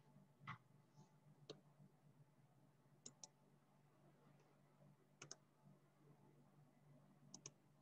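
Near silence with faint computer mouse clicks, mostly in quick pairs, about three seconds in, five seconds in and near the end, over a low steady hum.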